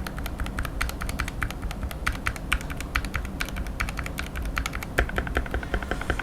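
Fast continuous typing on a Gamakay MK68 keyboard with Gateron Yellow optical switches, several keystrokes a second. About five seconds in the strokes turn louder and deeper.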